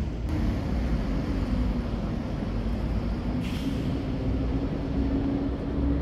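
City road traffic: a heavy vehicle's engine running with a steady low drone that rises slightly in pitch, and a short hiss about three and a half seconds in.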